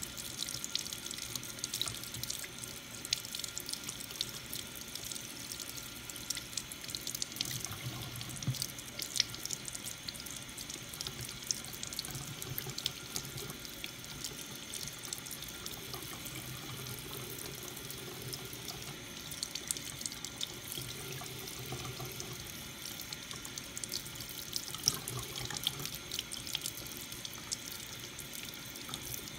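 Bathroom faucet running steadily into a sink, the stream splashing over hands and wet feathers as a silkie chicken's head and beard are rinsed, with scattered small splashes and drips.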